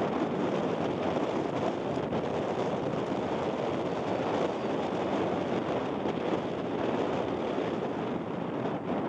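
Steady wind noise on the microphone, an even, unbroken rushing without any distinct events.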